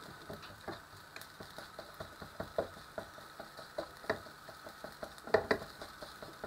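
Metal ladle scraping and tapping against a non-stick frying pan as fried rice is pressed and stirred to break up clumps, in irregular strokes with two louder knocks about five seconds in.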